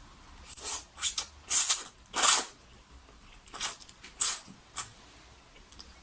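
Close-miked eating sounds from a person eating a mukbang meal: a string of short, loud, hissing mouth noises of slurping and biting, three in quick succession early on, then several more about two seconds later.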